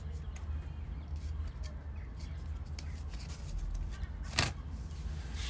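Kittens scuffling as they wrestle: light scratching and rustling over a steady low rumble, with one sharp tap about four seconds in.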